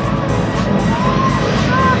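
Background music with children's shouting voices over it and a steady low rumble underneath, from a jet airliner's engines on the runway.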